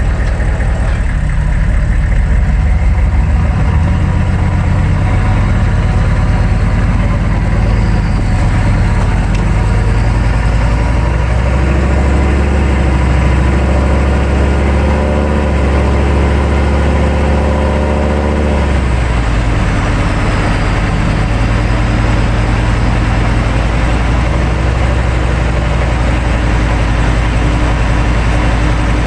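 The 6.5-litre turbo diesel V8 of a 1999 GMC 3500 pickup running as the truck drives, heard from beneath the chassis along with road noise. The engine note climbs from about eleven seconds in and drops suddenly near nineteen seconds, as at a gear change.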